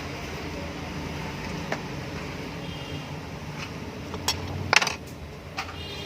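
Scattered metal clinks and light knocks as a ceiling fan motor's housing is worked apart by hand, the loudest a quick cluster of clinks near the end, over a steady low hum.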